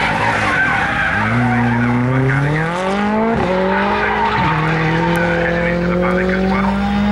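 M-Sport Ford Fiesta rally car's turbocharged 1.6-litre four-cylinder engine accelerating hard. Tyres skid in the first second. Then the engine pitch climbs and drops sharply at two quick upshifts, about three and a half and four and a half seconds in, and rises slowly after that.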